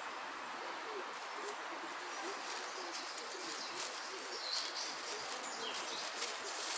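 A plastic bag crinkling and rustling as it is handled, in repeated bursts from about three seconds in. Behind it is a steady outdoor hiss with birds calling: a low call repeated a few times a second and a few short high chirps.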